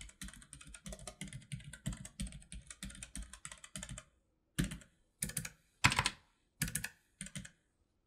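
Keychron K3 low-profile mechanical keyboard with red linear switches being typed on. For about four seconds there are quick quiet key strokes, about eight a second. Then, after a short pause, single key presses come about twice a second.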